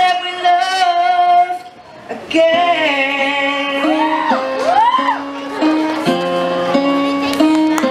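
A young male singer holds a long high note, then after a brief pause sings a new phrase and two swooping rising-and-falling runs over electronic keyboard chords. The last couple of seconds are mostly sustained keyboard chords.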